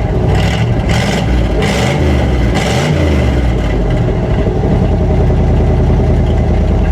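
1958 Chevrolet Apache truck engine revved in a few quick throttle blips, then settling to a steady idle about four seconds in. It is loud through an exhaust missing its cherry bomb muffler, and runs much better on freshly cleaned and regapped spark plugs.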